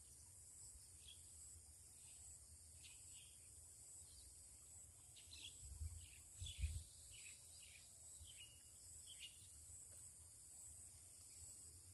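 Faint outdoor ambience: a steady high insect drone with scattered short, falling bird chirps, busiest around the middle. Two low thumps come about six seconds in.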